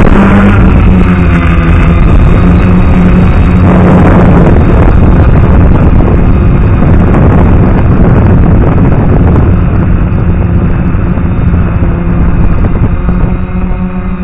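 DJI F450 quadcopter's motors and propellers running, heard up close through its onboard camera: a steady hum under a heavy rushing noise of prop wash.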